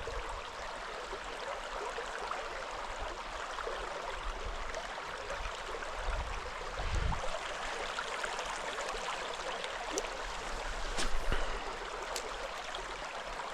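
Mountain stream water running steadily over its bed, an even rushing hiss. A brief low rumble comes about seven seconds in, and a few faint clicks between about ten and twelve seconds in.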